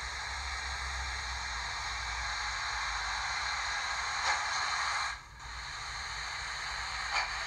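Steam hiss played by the Zimo MX659 sound decoder, a Manor class steam sound project, through the small speakers of a Dapol OO gauge GWR Mogul model. The hiss is steady and breaks off for about half a second a little after five seconds in. Two faint ticks sound in the last few seconds.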